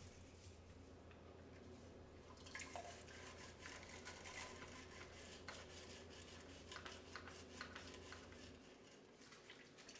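Faint scrubbing and swishing with soft clinks as a glass coffee pot is cleaned with leftover vinegar-and-water solution.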